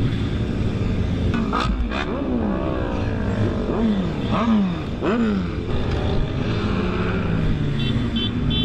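Motorcycle engine revving, its pitch climbing and dropping back several times.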